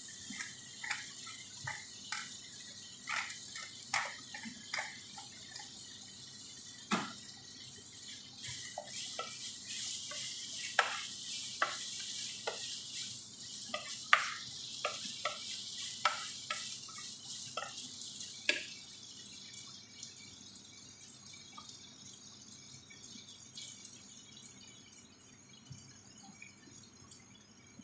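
Wooden spoon stirring chicken in a nonstick frying pan: irregular light taps and knocks against the pan. A hiss from the frying runs through the middle stretch and stops about two-thirds of the way in.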